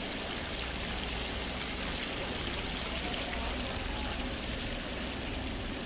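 Decorative water fountain running, water falling and splashing in a steady rush.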